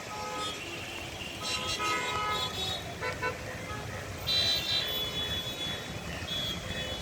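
Traffic jam: a steady rumble of vehicle engines with several car horns honking at different pitches, the loudest bursts about a second and a half in and again past the four-second mark.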